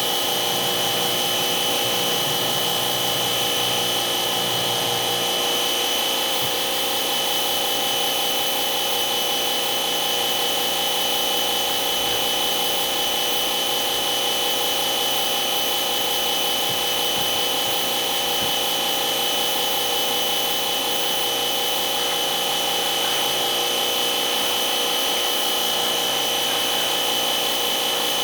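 Steady whine of a machine's electric motor running without a break, with one strong high tone.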